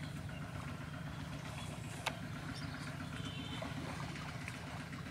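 A steady low drone of a running engine, with one sharp click about two seconds in.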